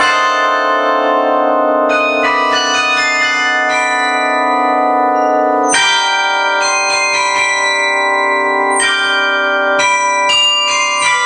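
Carillon bells playing a pop melody, notes struck in quick runs and left to ring into one another, with long sustained bell tones between the runs.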